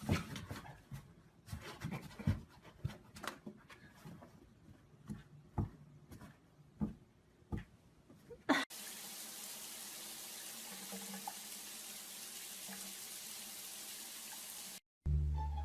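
Scattered knocks and clicks, then, about nine seconds in, a steady hiss of running water that lasts some six seconds and cuts off suddenly.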